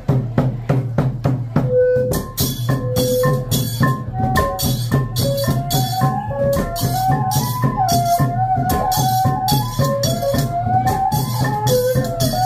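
Khmer Chhay-yam ensemble playing: drums and small cymbals keep a fast, steady beat with a bright rattling jingle, under a single melody line that steps up and down through held notes.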